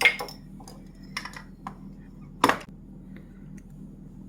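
A metal spoon clinking and knocking against a container while stiff, fridge-hardened honey is dug out: a sharp clink at the start, a few light ticks, and a loud knock about two and a half seconds in.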